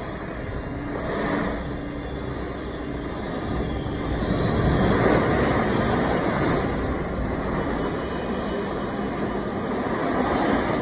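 Storm wind blowing hard across the microphone, with water spraying up from the road. The rushing noise is loudest about halfway through.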